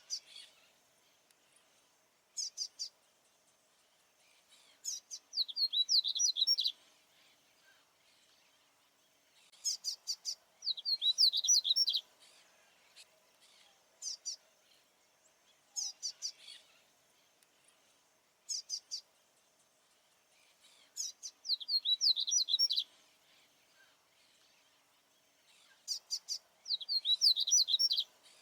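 Papa-capim baianinho seedeater (Sporophila) singing: a song of quick, high, slurred notes repeated about every five seconds, four times, with short single calls between songs.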